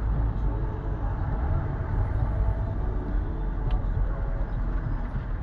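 Car driving slowly in city traffic: steady engine and road rumble heard from inside the cabin.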